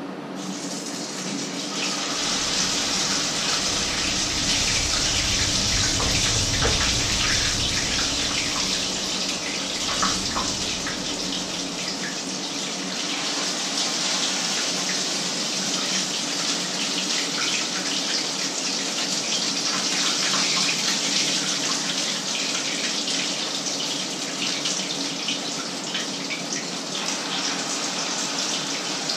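Patties of batter frying in hot oil in a pan: a steady, dense sizzle that starts about half a second in, with a few light clicks of utensils, over a low steady hum.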